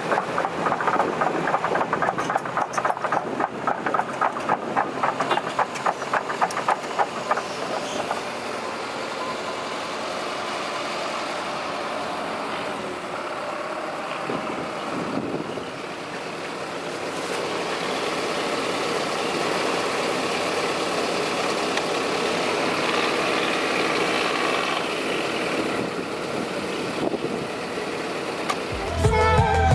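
Heavy diesel machinery working, its engine running with a fast rhythmic clatter for the first several seconds, then a steadier engine sound.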